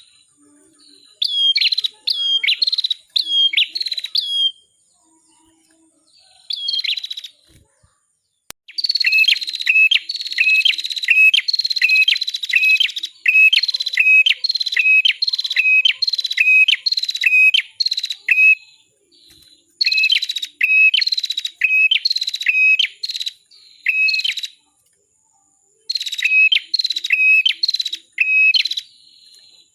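Red-headed prenjak (cimblek kepala merah) singing: runs of sharp, repeated chirps, about two a second, each note dropping in pitch. The runs are broken by short pauses.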